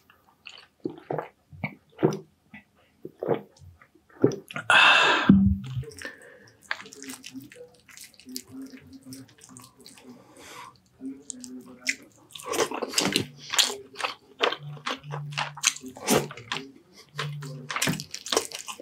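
Close-miked mukbang eating sounds: wet chewing, lip smacking and squishing while eating baked sea bass with rice, in short irregular bursts.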